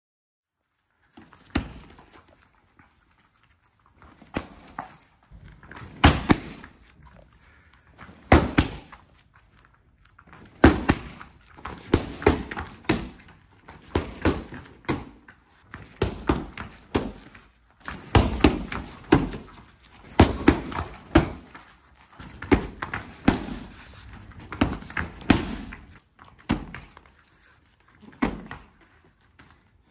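Kicks and strikes smacking a handheld speed target kick paddle, a long run of sharp slaps. Many come in quick pairs or short runs with brief pauses between.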